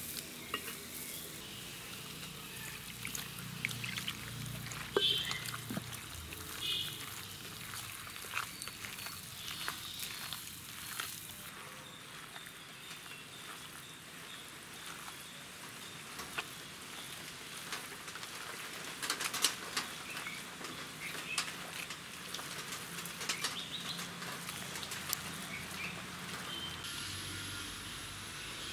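Water poured from a glass into flour in a plastic bowl, then bare hands mixing and squeezing the damp jowar roti dough, with irregular small clicks and rustles.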